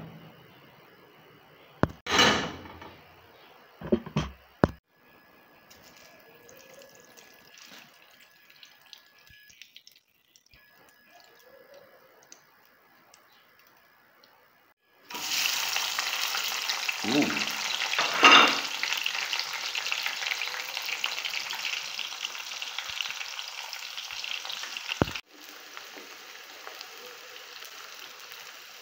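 Hot palm oil sizzling loudly in a pot as tomato paste is poured in, starting suddenly about halfway through after a quiet first half with a few short loud sounds. About three-quarters through it drops to a quieter, steady frying sizzle as sliced onions are stirred in the oil.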